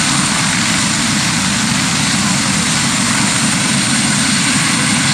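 Helicopter's turbine engines and main rotor running at high power as it hovers just above the ground: a loud, steady noise with a high whine over it.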